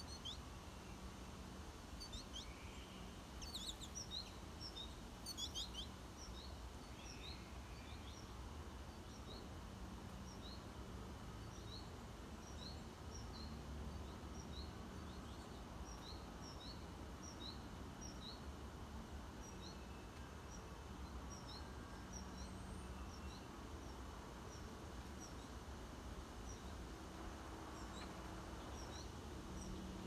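Small birds chirping: a steady run of short, high chirps, about one or two a second, with a flurry of louder, sharper chirps in the first few seconds, over a faint low outdoor rumble.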